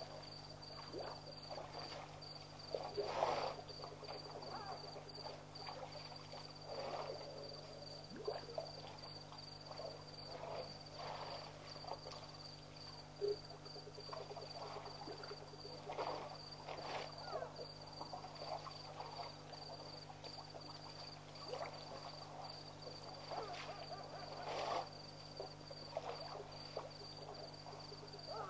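Night ambience at a waterhole: a steady high insect drone over a low steady hum, with short scattered animal sounds every few seconds, the loudest about three seconds in and again near the end.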